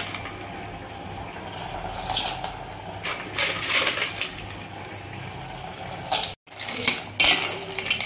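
Freshwater snail shells being rubbed and jostled by hand in a bowl of water: hard shells clicking and rattling against each other, with water sloshing. The sound cuts out abruptly about six seconds in.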